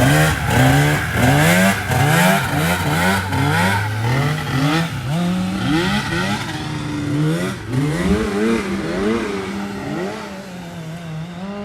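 Engines of engine-swapped Honda Odyssey buggies revving, the pitch rising and falling again and again, at times two engines heard at once. It grows a little quieter near the end.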